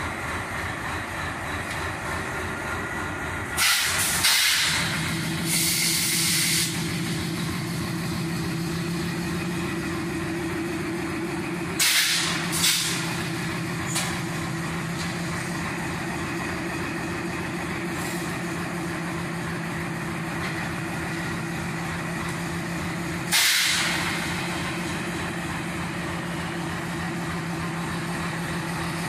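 Diesel train heard from on board: a steady rumble with a humming engine drone that comes in about four seconds in, broken by several short, loud bursts of hissing air.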